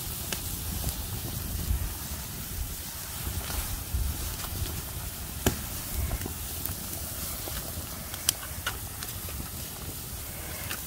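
Wood fire burning under a lidded pot of boiling water: a steady hiss and low rumble with scattered sharp crackles.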